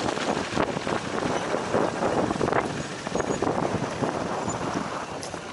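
Vespa scooter on the move, its engine mixed with heavy wind buffeting the microphone.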